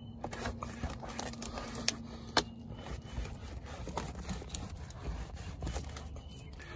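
Faint scraping and rustling of a microfiber towel wiping a chemically loosened rust stain off vinyl siding, with scattered light clicks.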